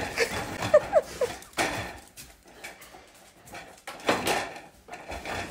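Dog whining in a few short, high, rising-and-falling squeaks during the first second and a half, with a burst of scuffing noise about four seconds in.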